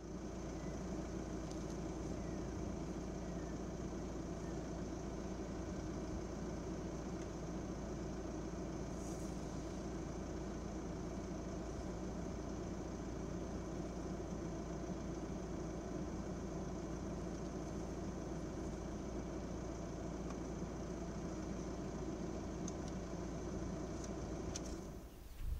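A vehicle engine idling steadily, with a faint steady high tone above it; the sound drops away just before the end.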